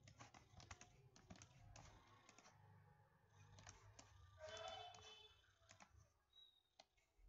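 Near silence with faint, scattered computer clicks from a mouse and keyboard, and a brief faint voice-like sound a little past halfway.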